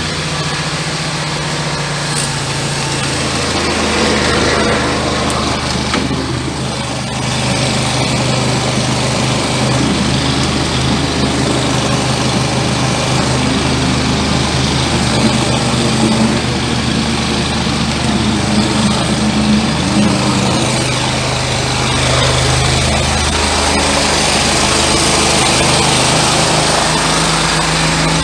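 Engine of a high-pressure sewer jetter running steadily under load with a hissing wash of noise, while the jetting hose scours hardened grease out of a 75 mm sink drain line. The engine's pitch shifts a couple of seconds in and again near the end.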